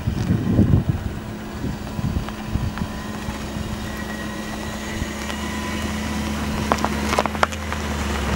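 Volkswagen Phaeton sedan driving slowly over a rough dirt track: a steady low engine hum with the rumble building as the car comes close, and stones crackling under the tyres near the end. Wind buffets the microphone in the first second.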